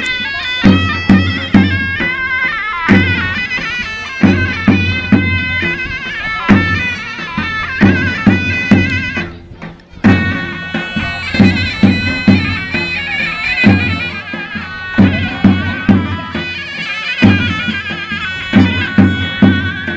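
Turkish folk dance music: a shrill reed wind instrument plays the melody over regular bass drum strokes. There is a brief break about halfway through, then the music picks up again.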